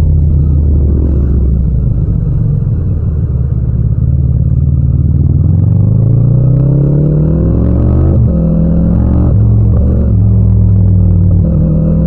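Yamaha MT-07's 689 cc parallel-twin engine running at a steady low speed, then revving up through the gears about six seconds in, with quick breaks for gear changes near eight and nine and a half seconds and another rise near the end.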